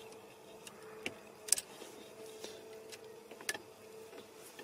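Screwdriver turning the retaining catch screw in the corner of a BMW E36 car radio: scattered light clicks and ticks, with sharper clicks about one and a half seconds in and again about three and a half seconds in, over a faint steady hum.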